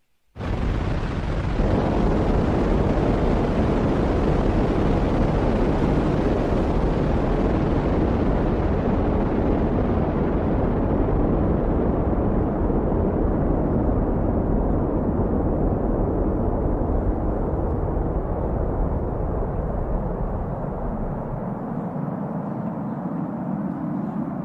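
Atlas V rocket at liftoff and climb-out: loud, steady rocket exhaust noise that starts suddenly, growing duller as the rocket climbs away, with the deepest part falling off near the end.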